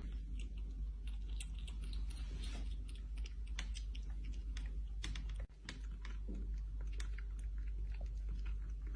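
A cat eating close to the microphone: a run of small, irregular wet clicks and smacks over a low steady hum.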